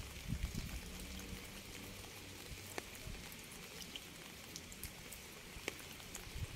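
Light rain: a steady soft hiss with scattered individual drops ticking. A low rumble dies away in the first second.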